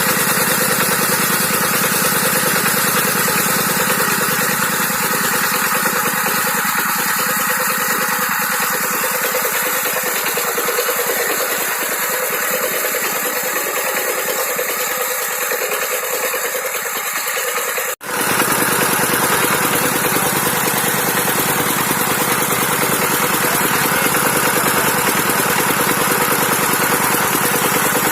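Dongfeng 12 hp single-cylinder diesel engine running steadily while driving an NS 100 irrigation water pump. The sound breaks off for an instant about two-thirds of the way through, then carries on unchanged.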